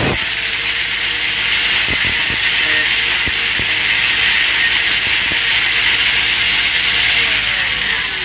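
Angle grinder with an abrasive disc grinding down a weld on a stainless steel pipe joint: a steady, loud, high grinding hiss of disc on metal.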